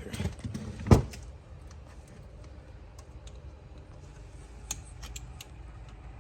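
Hands working on a car's steering-wheel trim and wiring connectors: a sharp knock about a second in, then scattered light plastic clicks and taps.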